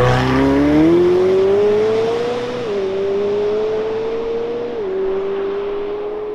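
McLaren 720S Spider's 4.0-litre twin-turbo V8 accelerating hard away, its revs climbing and then dropping sharply at two quick upshifts of the dual-clutch gearbox, about two and a half seconds in and again near five seconds. The sound grows fainter as the car pulls away.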